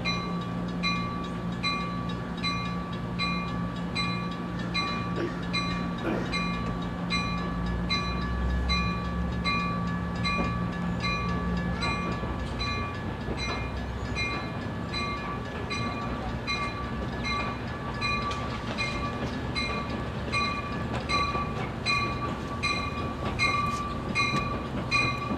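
Amtrak Surfliner train pulling away from the station, its low running hum and wheel noise fading as it goes, the hum dropping out about halfway. A steady ringing repeats about twice a second throughout.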